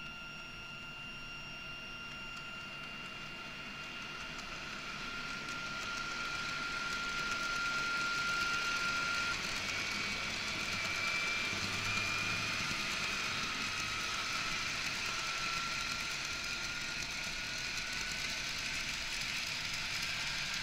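GTO-thyristor VVVF inverter of an E1 series Shinkansen whining: steady high tones at first, getting louder about six seconds in, then a tone that rises slowly in pitch from about ten seconds in as the train gathers speed.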